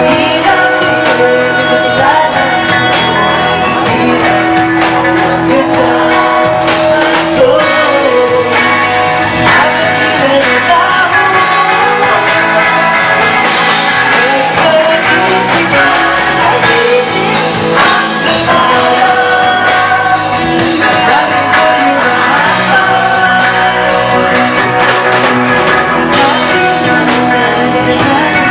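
Live rock band playing loud and amplified: a woman sings the lead into a microphone over electric guitars and bass.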